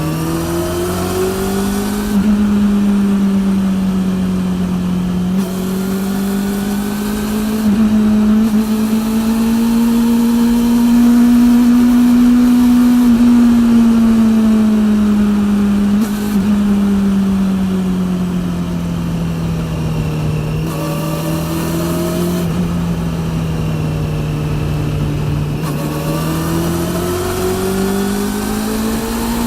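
Honda CB400 inline-four engine running through a TSR E02 slip-on exhaust while riding. Its pitch rises and falls gently with the throttle.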